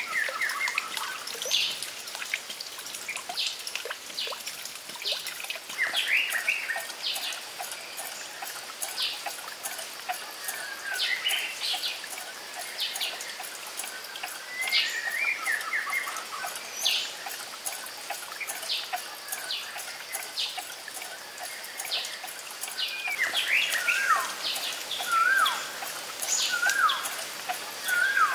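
Birds chirping and calling over a steady trickle of running water. Near the end, one call, a short whistle that falls in pitch, repeats about once a second.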